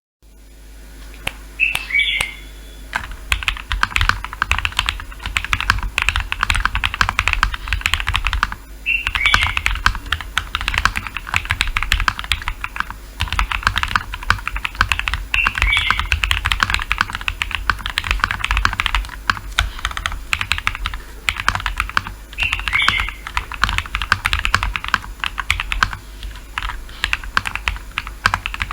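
Mechanical keyboard fitted with factory-lubed First Love switches (polycarbonate top, POM bottom housing) being typed on fast and continuously, a dense run of key clicks that starts about a second in.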